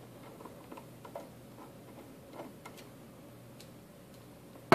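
Faint, irregular small ticks and clicks of a hand screwdriver turning out a small screw from a metal access-point case, with a sharper knock at the very end.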